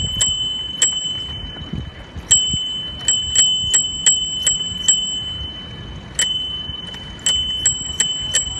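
Bicycle bell dinging over and over in quick runs of about three strikes a second, with two short pauses, over a low rumble of riding.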